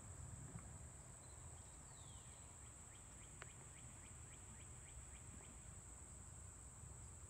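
Faint woodland ambience: a steady high-pitched insect drone, with a bird calling a run of short falling chirps, about four a second, a few seconds in, over a low rumble.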